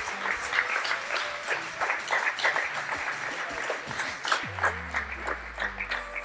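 Audience applauding, dense and steady. About four seconds in, music with a low bass starts underneath.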